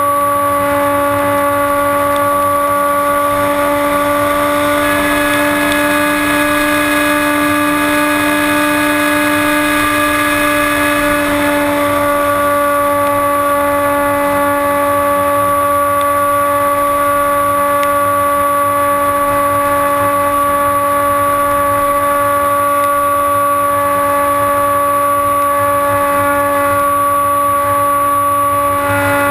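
The electric pusher motor and propeller of a HobbyKing Bixler RC glider, heard from a camera mounted on the plane: a steady, high whine with wind noise underneath, its tone thickening slightly for a few seconds near the start.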